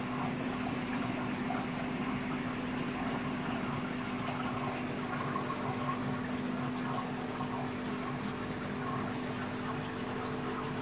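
Aquarium air stones bubbling steadily, a continuous fizzing of fine air bubbles through the water, with a steady low hum underneath.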